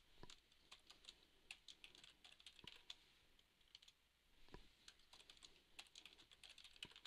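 Computer keyboard being typed on: faint, irregular key clicks as a command is entered.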